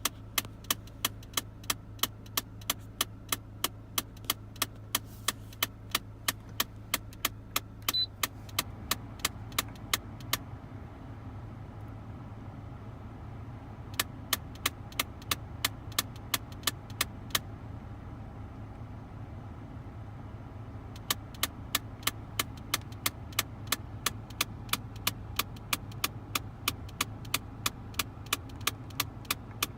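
Rapid, even clicking, about three clicks a second, from the climate control of a 2001 Mitsubishi Galant: the heater/cooling flap actuator is broken. The clicking stops twice for a few seconds and starts again, over a steady low hum.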